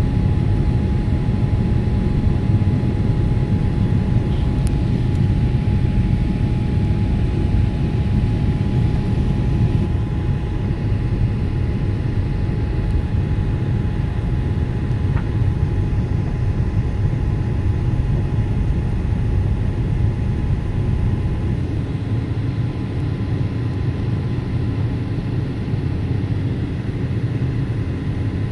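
Airliner cabin noise on the approach to landing: the steady deep rumble of the engines and the rushing air, with a thin steady whine above it. The noise eases slightly partway through.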